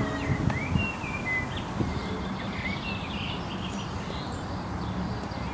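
Small birds chirping in short, rising and falling notes, mostly in the first few seconds, over a steady low rumble of background noise.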